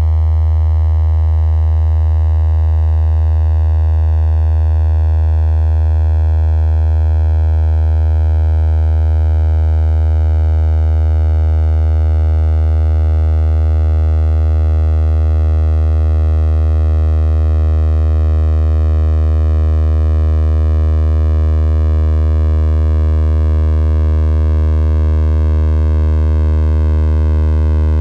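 Computer-synthesized drone made from circle geometry turned into sine-like waveforms: a loud, steady low hum with many higher overtones, the upper ones slowly sinking in pitch as the circles move.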